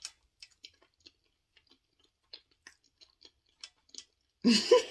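Close-miked chewing of food: soft, scattered wet mouth clicks. Near the end comes a louder, breathy burst of laughter.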